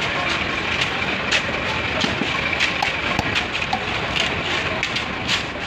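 Silver carp being cut on a boti, an upright curved blade: irregular crackling clicks as the blade shears through scales and flesh, over steady background noise.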